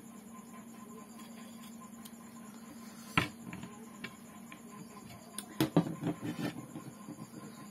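Kitchen knife peeling a cucumber by hand: a sharp click about three seconds in, then a quick run of small knocks and scrapes a couple of seconds later, over a steady faint hum.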